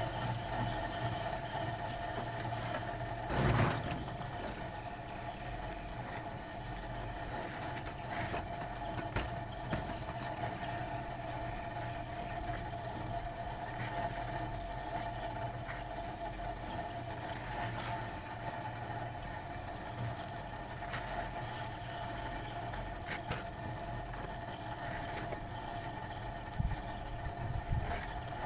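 A motor running steadily with a constant hum, with scattered clicks and one louder knock about three and a half seconds in.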